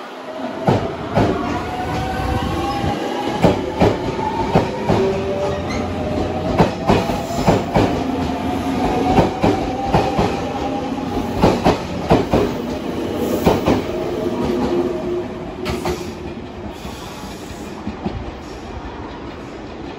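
JR Central 383 series Limited Express electric train pulling out and gathering speed. Its motors give a slowly rising whine over a steady run of wheel clicks on the rail joints. The sound fades about three-quarters of the way in as the last cars leave.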